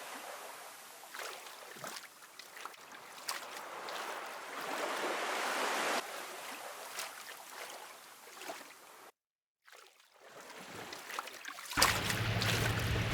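Water splashing and lapping, an uneven rushing noise with small ticks, cut by a short dead-silent gap a little past the middle. Near the end a steady low hum comes in.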